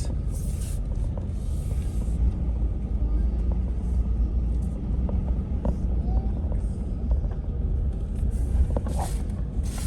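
Steady low rumble of a pickup truck driving, engine and road noise.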